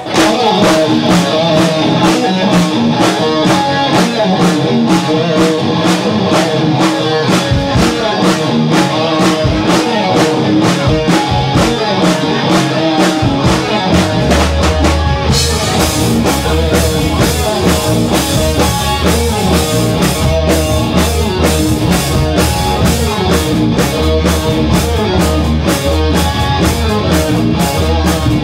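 Live rock band playing loud: a Les Paul-style electric guitar and a drum kit keeping a steady beat. About halfway through the low end gets much heavier and the cymbals brighter as the full band kicks in.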